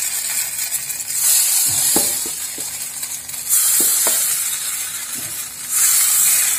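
Carabikang batter sizzling in the hot cups of a metal mould as more batter is poured in, the hiss swelling and easing every couple of seconds, with a few light ticks in between.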